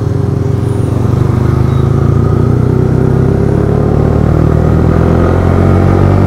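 Yamaha R15 V3's 155 cc single-cylinder engine pulling steadily under acceleration, its pitch and loudness rising gently as the bike gains speed.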